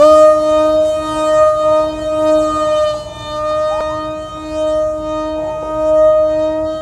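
Electric power unit of a remote-control SU-30 model jet in flight, giving a loud, steady, siren-like whine that holds nearly one pitch.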